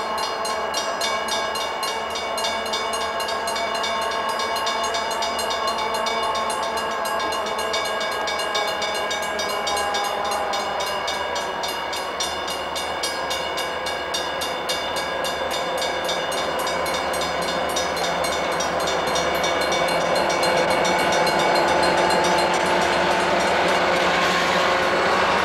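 Southern Pacific freight train's lead diesel locomotives passing slowly down a steep grade, a steady whine of several tones over the train's running noise. The pitch dips slightly about ten seconds in, and the sound grows louder near the end as the units come alongside.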